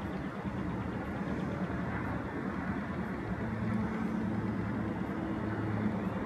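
Kansas City Southern and BNSF diesel-electric freight locomotives passing, their engines a steady low drone over the rumble of the train, growing a little louder about halfway through.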